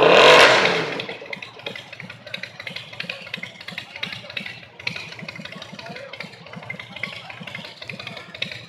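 A burst of engine noise for about the first second, by far the loudest thing here, then a steady lower engine sound with rapid low pulses, as of vehicles running at idle.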